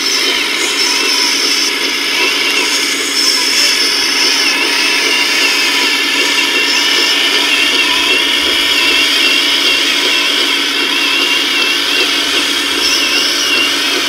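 Small electric drive motors and gearboxes of a radio-controlled Liebherr LR 634 crawler loader model whining steadily, the pitch wavering as it drives and works its bucket.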